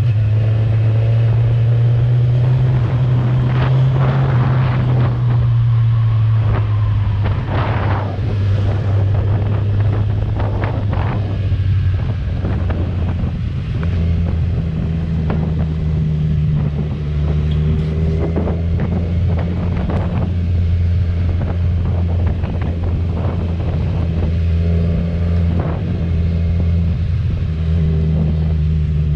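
Kawasaki Z1000R's inline-four on its stock exhaust, running at a steady cruise; its note drops to a lower pitch about twelve seconds in and then holds steady. Wind buffets the microphone throughout.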